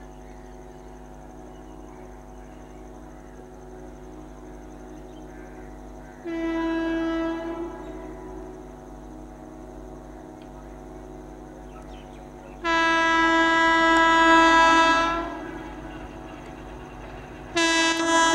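Electric locomotive horn sounded three times as the train approaches: a blast of about a second, a longer, louder one of about two and a half seconds, and a short one near the end, over a steady low rumble.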